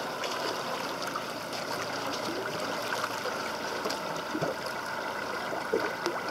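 Water rushing and splashing along the side of a boat, with a black marlin held on the surface right beside the hull.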